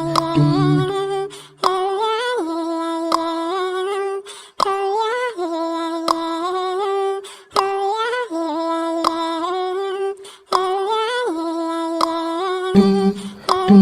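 Vocal-only nasheed playing as background music: a voice sings a melody in phrases of about three seconds with short breaks, over low hummed backing vocals at the start and again near the end.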